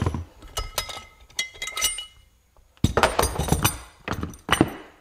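Metal clinks and clatter of a valve spring compressor being unscrewed and lifted off a motorcycle cylinder head. A few ringing metallic taps come first, then a louder rattle of metal parts about three seconds in.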